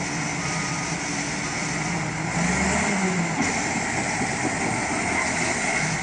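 A vehicle engine running, revving up briefly and getting louder about two and a half seconds in, then settling back.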